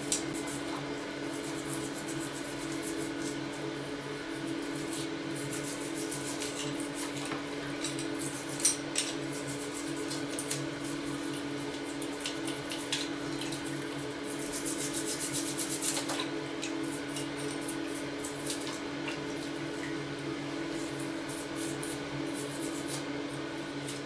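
A toothbrush scrubs a die-cast metal toy chassis in a tub of liquid to strip off the old red paint. There is wet bristle scratching, small splashes and light clicks of the metal part, with a louder rattle about a third of the way in and another past the middle, over a steady low hum.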